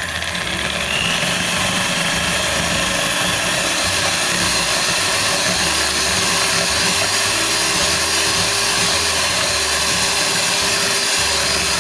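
Electric hand mixer running steadily, its beaters whipping chilled all-purpose cream so that it doubles in volume.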